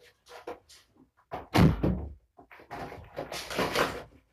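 A room door being handled and shut: a run of knocks and rattles, with the loudest thud about a second and a half in and a longer rattling stretch that stops abruptly near the end.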